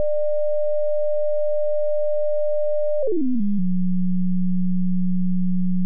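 Pure sine tone from the PhET Sound simulation, steady at about 600 Hz. About three seconds in it glides quickly down to a steady lower tone near 180 Hz as the frequency slider is lowered. The pitch change comes after a delay, the time the simulated wave takes to reach the listener.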